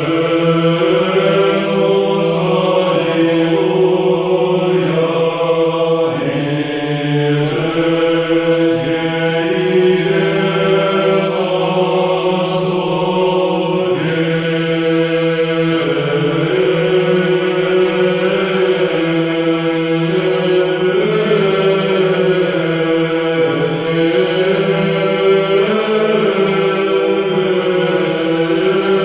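Eastern Orthodox liturgical chant: several voices sing slow, sustained lines over a held low drone note.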